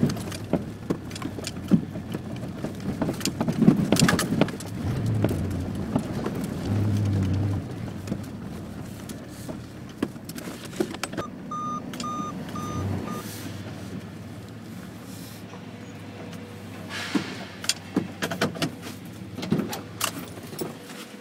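1989 GMC Sierra pickup running at low speed, heard from the cab, with scattered knocks and rattles. Four short beeps sound about halfway through.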